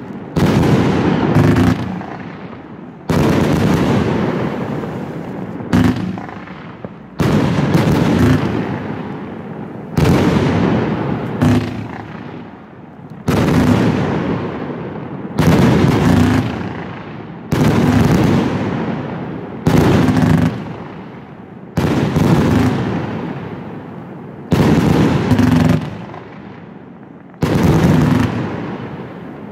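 Funke Fermata 100A 100-shot fireworks compound cake firing volleys of shells that burst in the air. A sharp bang comes about every two seconds, each followed by a fading crackle and rumble.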